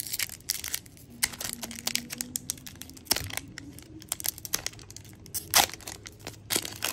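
A Pokémon booster pack's foil wrapper being torn open and crinkled by hand: a run of irregular sharp crackles and rustles, the loudest about five and a half seconds in.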